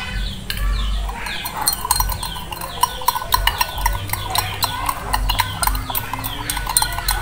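Metal spoon stirring tea in a drinking glass, clinking quickly and repeatedly against the glass from about a second and a half in.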